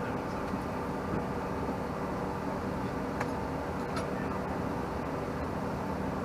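Steady cabin noise of a Bombardier CRJ-700 with its tail-mounted General Electric CF34 turbofans running, heard from inside the cabin as an even rush with a low hum, and a few faint clicks from the cabin.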